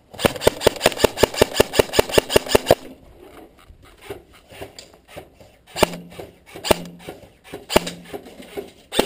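Airsoft electric rifle firing a rapid string of sharp shots, about six a second for nearly three seconds. Then come four single shots roughly a second apart, each followed by a short low hum.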